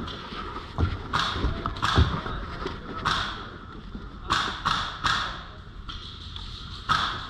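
CYMA SR25 airsoft electric rifle with a brushless motor firing a run of about eight single shots at irregular intervals.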